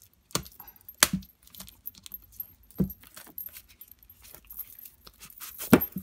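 Hands handling a K-pop album box, with metal bangle and charm bracelets on the wrist jingling and clinking. A few sharp knocks and clicks come through: two in the first second, one near three seconds, and the loudest near the end.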